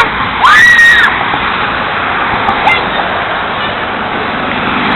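Steady rushing noise of passing road traffic. About half a second in, a girl's short loud shriek rises, holds and falls in pitch.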